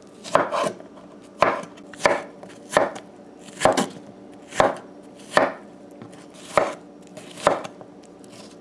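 Kitchen knife chopping peeled squash into cubes on a wooden cutting board: about ten sharp chops, roughly one a second, each blade striking through to the board.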